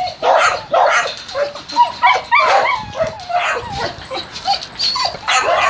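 Dogs barking and yipping over and over, with whines gliding up and down in pitch between the barks.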